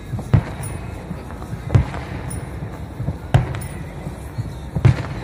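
Fireworks display: aerial shells bursting overhead with deep booms, four of them, about one every second and a half.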